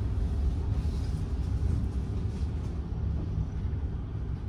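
Steady low rumble of a motor vehicle riding along, engine and road noise heard from inside its cabin, easing slightly toward the end.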